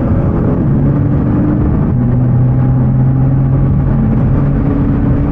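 Nissan GT-R R35's twin-turbo V6 engine heard from inside the cabin while driving at highway speed, over steady road rumble. The engine note drops abruptly about two seconds in, then steps back up about four and a half seconds in.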